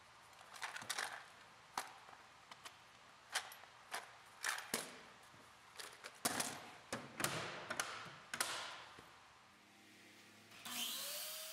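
Hard plastic clicks, knocks and short scrapes as a DeWalt plastic case is handled and fitted against a Makita plastic tool case holding drills. The sounds are irregular, with a brief hiss near the end.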